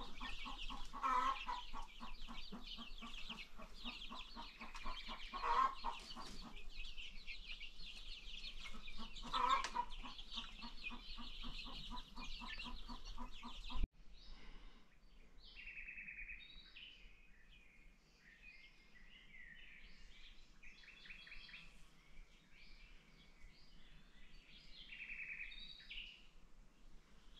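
Baby chicks peeping in a dense chorus, with louder, lower chicken calls three times. About fourteen seconds in, the sound cuts abruptly to a quieter run of scattered chirps.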